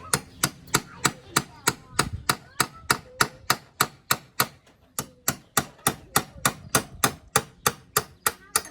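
Hammer striking rapidly and evenly, about four blows a second, driving a fastener into a snug drilled hole.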